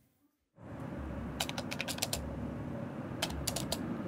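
Keyboard typing sound effect: three short runs of quick key clicks over a low steady hum, starting after about half a second of silence.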